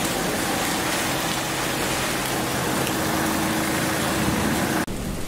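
Steady rain falling into a puddle on pavement, an even wash of splashing drops. Near the end it drops suddenly to a softer rain.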